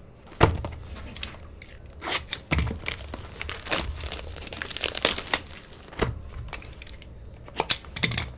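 Plastic shrink wrap being torn and crumpled off a sealed trading-card hobby box, in irregular crinkling bursts with sharp crackles.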